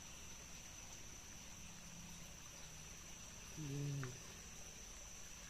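Insects trilling steadily at one high pitch in dense vegetation. A person's brief hum is heard about two-thirds of the way through.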